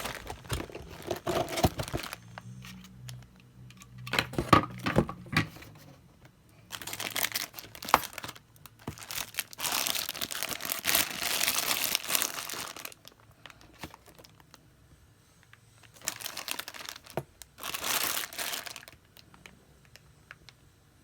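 Crinkling plastic packaging of a Re-Ment miniature set being handled and opened. It comes in several bouts of rustling with quieter pauses between them.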